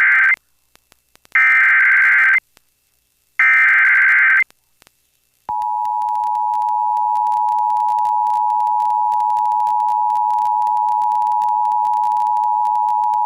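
Emergency Alert System SAME header: the tail of one burst of warbling digital data, then two more bursts about a second long with short gaps between them. After about a second of silence, the EAS two-tone attention signal (853 and 960 Hz together) sounds steadily, announcing a new alert.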